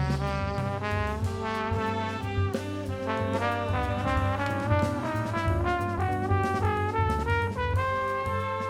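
Jazz-style music: a horn melody moving through quick notes over a steady bass line.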